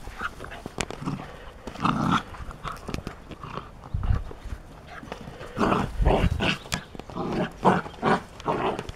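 A puppy making short play vocalisations in several bunched bursts while it tussles with a football, with a few sharp clicks in between.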